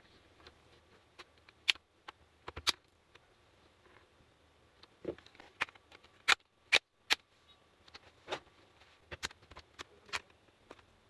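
Sharp plastic clicks and small snaps at irregular intervals, about a dozen in all, from the laptop's slim plastic case being pried open by hand and tool.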